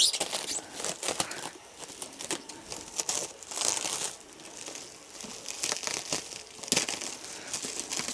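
Packing material being handled and pulled open around a new gutter vacuum, crinkling and tearing in irregular rustles and clicks.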